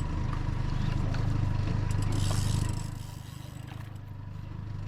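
Yamaha 75 outboard motor running with a steady low hum that drops off about three seconds in, with a brief hiss just before the drop.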